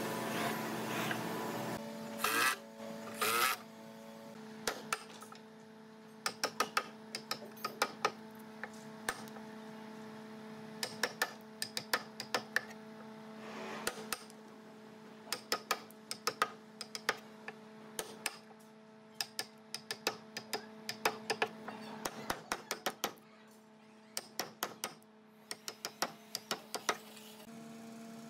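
Quick runs of light, sharp taps, a few at a time, repeated throughout over a steady motor hum. Two brief louder scraping noises come about two to three seconds in.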